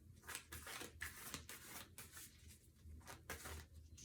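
Tarot cards being handled: faint, irregular soft rustles and slides of card stock, several a second.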